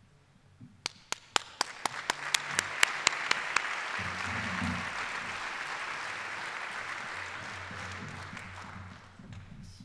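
Audience applauding. A few loud single claps close by start about a second in, the applause swells into a steady patter, and it dies away near the end.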